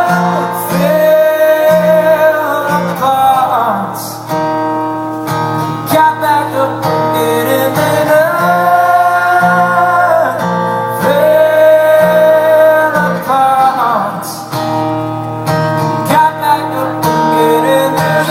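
Live band music: a strummed acoustic guitar keeps a steady pulse under long, held sung notes.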